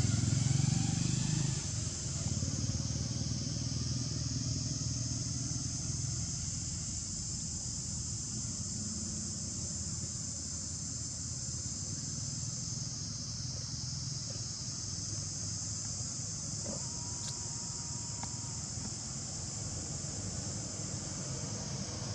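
A steady, high-pitched chorus of insects drones, swelling slightly in places. A low rumble fades away over the first few seconds.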